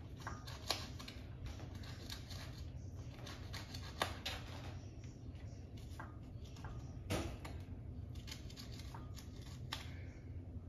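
Knife chopping a lime into small pieces on a plastic cutting board: irregular light taps, with four sharper knocks spread through.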